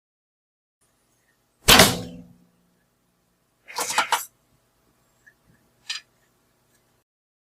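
Bow-and-arrow sound effects: a sharp strike with a short ringing tail about two seconds in, then a quick rattling cluster of several hits around four seconds, and a brief faint higher-pitched sound near six seconds.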